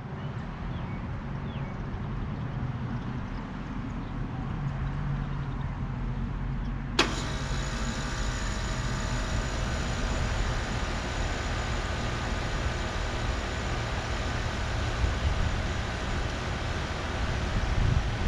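A 2006 York Olympian 5-ton air conditioner running with a steady low hum. About seven seconds in there is a sharp click, and from then on steady whining tones and a fuller rushing hiss join the hum.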